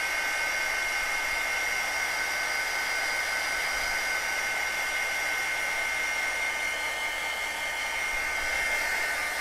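Handheld craft heat tool (embossing heat gun) running steadily as it blows hot air to dry wet paint on a paper tag. Its fan gives a rushing hiss with a steady high two-note whine on top.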